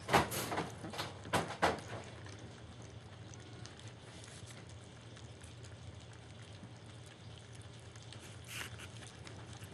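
German Shepherd puppies lapping and slurping soft dog food from a shallow dish at their first weaning meal, with a few louder scuffling noises in the first two seconds, then quieter eating over a low steady hum.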